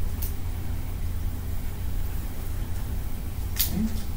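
Steady low hum of classroom room noise, with a few faint, brief scratches of a felt-tip marker drawing on paper.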